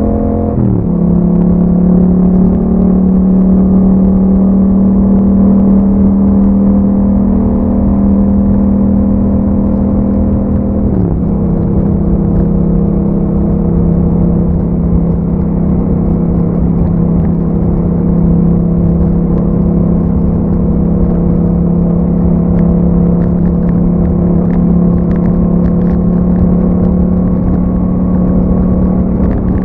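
2021 Yamaha MT-07's parallel-twin engine through an Akrapovič exhaust, riding at steady revs. The engine note drops sharply twice as the rider shifts up, once about a second in and again around eleven seconds in, and holds steady in between.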